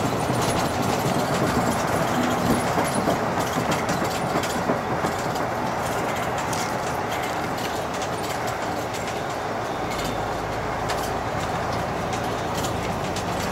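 Inside a moving coach bus: a steady rumble of engine and road noise, with scattered light clicks and rattles.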